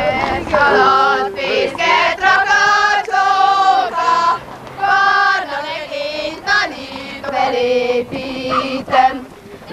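A group of girls singing a song together, with long held notes and short breaks between phrases.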